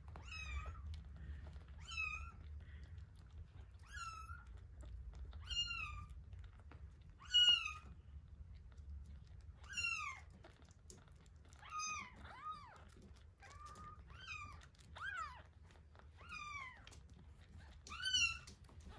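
Kitten mewing over and over: short, high-pitched cries that each fall in pitch, about a dozen of them, one every second or two.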